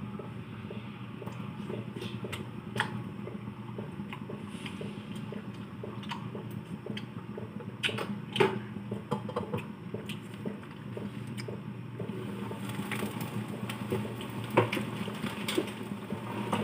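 Chicken adobo simmering in a covered pan: a steady bubbling tick over a low hum, with a few sharp clinks of a pot lid being handled. Near the end the lid comes off and a brighter hiss of the boiling sauce rises.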